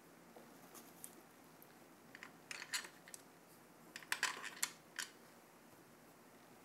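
Faint clicks and light clacks of CPU cooler mounting spacers being fitted by hand onto the threaded backplate bolts around the socket, in two short clusters about two and a half and four seconds in.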